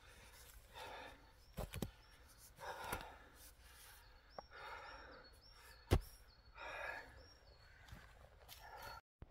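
Mattock striking and scraping loose forest soil: a series of faint chops and soil swishes about every second or two, with one sharper, louder hit about six seconds in.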